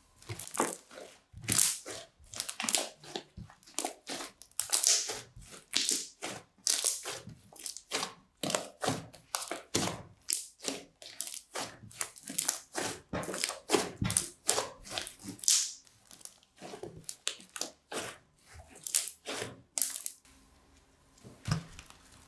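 Crunchy slime made with sponge and plastic-bag pieces being squeezed and kneaded by hand: a rapid, irregular run of crackling, crunching pops that eases off about two seconds before the end.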